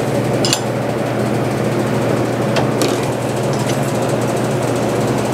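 Steady hum of an electric motor running in a machine shop, with a few light metallic clicks from tools being handled at a milling machine's spindle.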